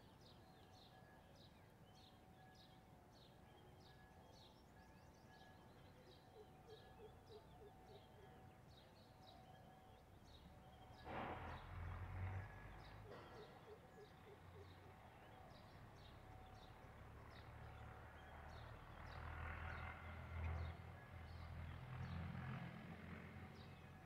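Quiet outdoor ambience: a faint high chirp repeats about twice a second, with low rumbling bumps about 11 seconds in and again from about 19 seconds.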